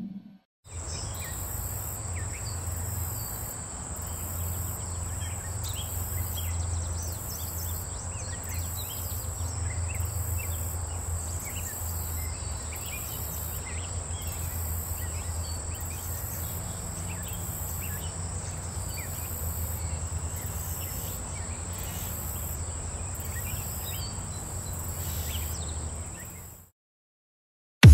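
Outdoor insect chorus: a steady high-pitched drone with a very high chirping pulse repeating a little more than once a second, scattered short bird chirps, and a low steady rumble underneath. It cuts off abruptly near the end.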